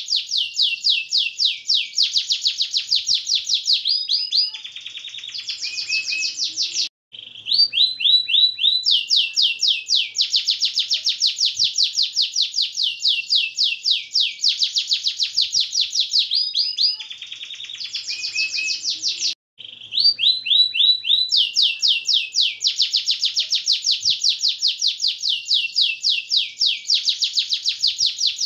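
Domestic canary singing a long, nonstop song of rapid, high rolling trills, broken now and then by lower, slower phrases, with two brief pauses about seven and nineteen seconds in.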